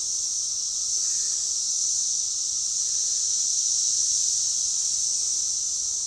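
Chorus of Brood X periodical cicadas (17-year Magicicada), a steady, unbroken high-pitched drone that neither pulses nor breaks.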